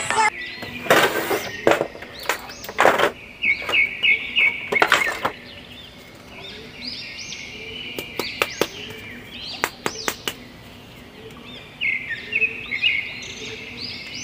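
Small birds chirping repeatedly in the background, with scattered crackles and clicks of a clear plastic blister tray as a plastic Hulk action figure is handled.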